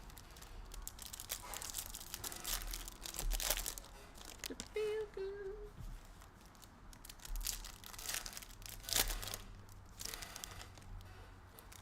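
Plastic wrapping on trading card packaging crinkling and tearing in irregular bursts as it is handled and unwrapped.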